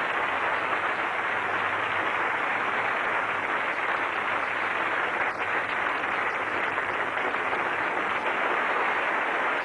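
Studio audience applauding steadily, dull and muffled as on an old TV recording.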